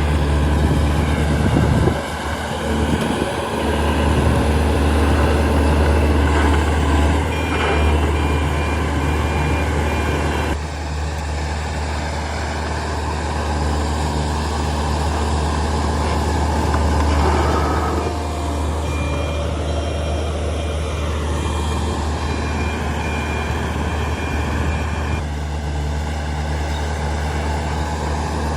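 Heavy diesel machinery engine running hard and steadily, its level rising and falling as the load changes. A thin, high, steady tone sounds twice, for a few seconds each time.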